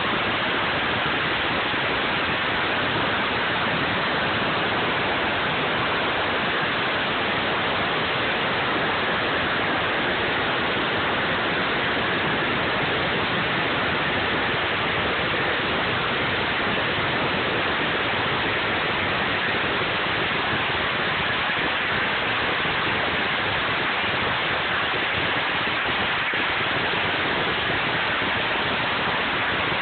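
A huge string of firecrackers burning continuously, the bangs so dense that they merge into one steady, even crackle with no single report standing out.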